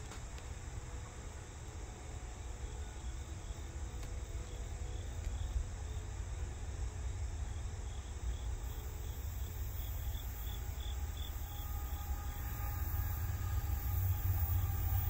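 Insects chirping in a faint, pulsing pattern over a steady low rumble. Toward the end the rumble grows louder as an unseen train approaches along the line.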